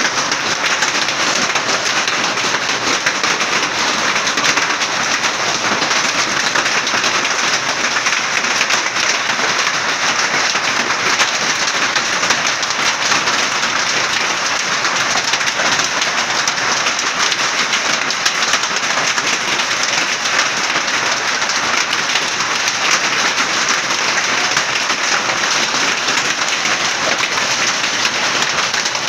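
Heavy rain mixed with hail pelting the ground, a loud, steady hiss of countless small impacts.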